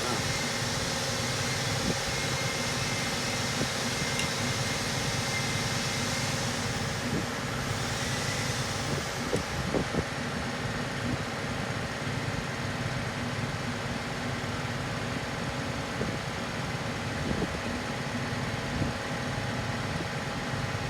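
Steady mechanical hum, like a fan or machine running, with a few light clicks about halfway through and again near the end.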